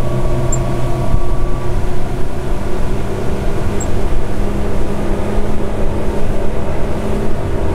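Twin Mercury Verado 300 hp V8 outboards running steadily at speed, loud, with the mufflers bypassed so the exhaust exits out the side and the V8 note is heard.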